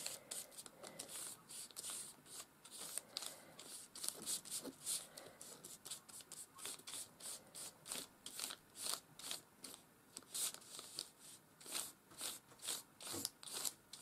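Flat paintbrush spreading a thin coat of matte medium, the bristles brushing back and forth over paper in a quick, uneven run of short, soft strokes, about two or three a second.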